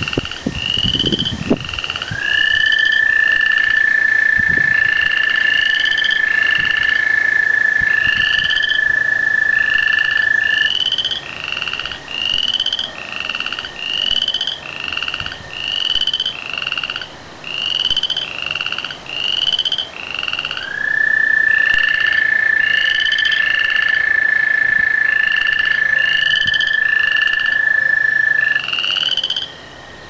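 A loud night chorus of frogs and tree frogs: short rising calls repeated about once a second. Twice, a long steady high call is held for about eight seconds beneath them.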